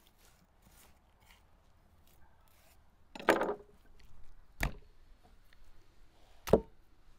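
A knife cutting beef tongue on a thick wooden chopping block: faint cutting and rustling, then a heavier thud about three seconds in and two sharp knocks on the wood, one near the middle and a louder one near the end.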